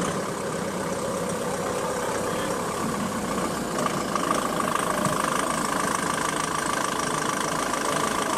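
A steady mechanical drone, like an engine or motor running at an even speed.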